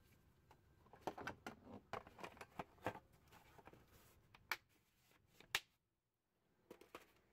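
Faint handling sounds of a torque wrench and a hard plastic tool case: a run of light clicks and knocks in the first few seconds, then two sharper clicks and a few small taps near the end.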